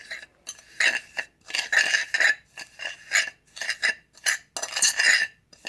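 A utensil scraping and stirring in a small container, working concrete grinding dust and a little water into a stiff paste. Short irregular strokes, about two a second, each with a slight ring.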